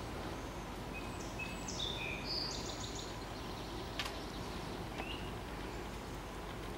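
Steady outdoor background hiss with a small songbird's short, high chirps and a quick trill about one to three seconds in, and a single sharp click about four seconds in.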